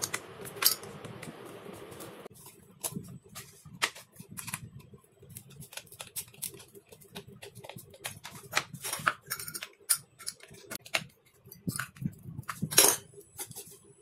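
Irregular clicks, taps and light metallic clinks as a finned aluminium heat sink and its screws are handled and fitted onto a plywood board. A steady hiss underneath cuts off suddenly a little over two seconds in.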